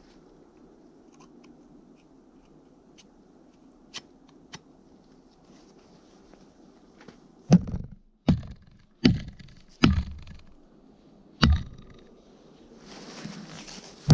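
Fire axe chopping into a frozen spruce log: five heavy blows land over about four seconds from halfway in, each a sharp crack with a deep thud. After a short rustling hiss, one more blow lands at the very end.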